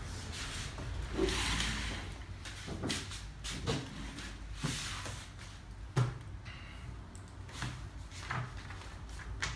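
Handling noises at a desk: scattered knocks and rustles as a notebook and pen are picked up and opened, with a sharp click about six seconds in.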